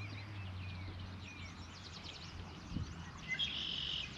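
Birds chirping: many short, quick calls that slide up and down in pitch, with a louder buzzy trill near the end.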